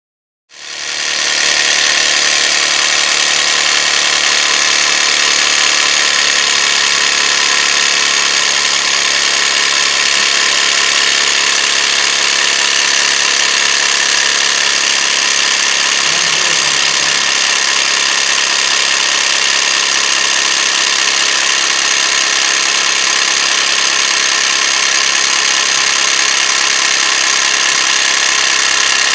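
12 V portable mini air compressor switching on about half a second in and then running steadily under load, pumping air into a car tyre through its hose.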